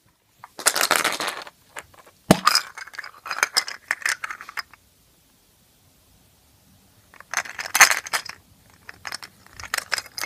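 Hard plastic surprise-egg capsule being handled and opened: its halves clicking and rattling against each other and the toy figure inside, in several bursts with a sharp click about two seconds in.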